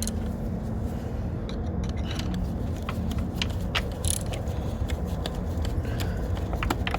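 Scattered light clicks and knocks of parts and tools being handled and fitted by hand in a car's engine bay, over a steady low background noise.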